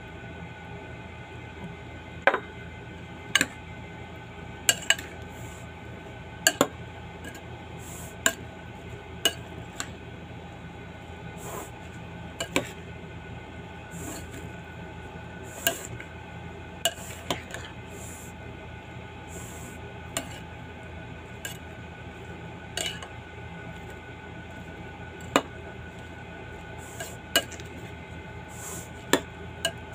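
A spoon clinking against a red ceramic bowl as a chopped vegetable salad is tossed: sharp, irregular clinks about once a second, over a steady low hum.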